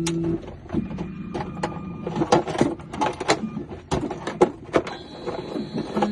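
Electronic key-cutting machine at work: a steady motor hum that stops just after the start, then a quick run of sharp clicks and clacks as it cuts the new key blade.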